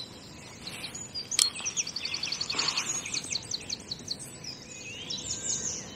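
Small songbirds singing in a dawn chorus: one bird gives a fast run of high, rapidly repeated notes from about a second and a half in to about four seconds, with other birds calling more faintly around it. A single sharp click comes about a second and a half in.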